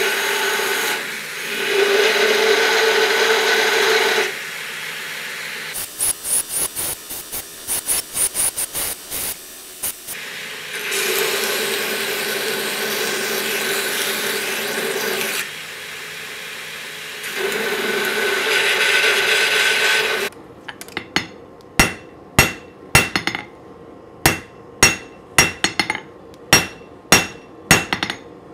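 Belt grinder running as steel is pressed against the edge of its belt to cut grooves into a knife blank. This comes in several stretches of grinding noise over a steady hum, with a run of quick, short contacts in the middle. About 20 seconds in it switches to a hammer striking hot steel on an anvil, at about two blows a second.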